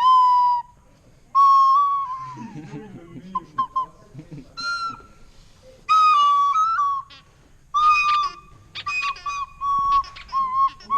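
A small whistle-type wind instrument piping a halting tune of short notes, some sliding in pitch, played badly.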